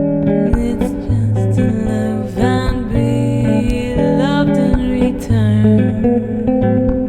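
Bass playing an instrumental passage: held low notes with higher melodic notes over them, some of them sliding in pitch.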